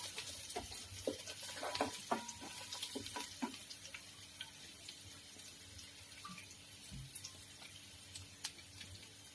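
Sesame seeds and chopped garlic frying in hot oil: a soft sizzle with sharp crackles that thin out over the first three or four seconds, leaving a faint hiss with the odd tick.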